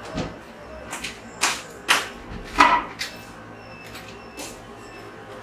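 Footsteps on a tiled floor, short sharp knocks about half a second apart, then a wooden bedroom door being opened.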